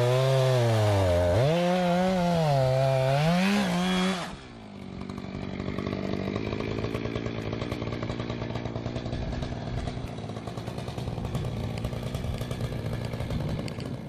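Chainsaw running, its engine pitch rising and falling as it revs and bogs down for about four seconds, then dropping to a quieter, steadier running sound for the rest.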